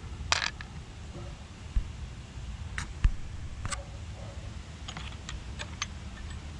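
Sharp hard-plastic clicks and knocks as the inner air-box cover of a Honda EB4000X generator is worked loose and lifted off. There are a few single clicks in the first four seconds, then a quick run of light ticks near the end.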